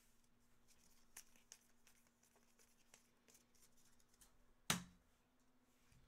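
Faint rustling and small ticks of trading cards and card packaging being handled, with one sharp knock about three-quarters of the way through.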